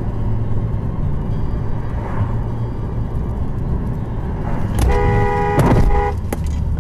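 Steady engine and road hum of a car driving, heard from inside the cabin. About five seconds in, a two-note car horn sounds once for just over a second, with a few short clicks around it.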